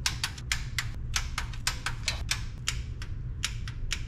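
Hand ratchet clicking in quick, uneven runs of about four clicks a second as bolts on a 4G63 oil pan baffle plate are run down and torqued to spec.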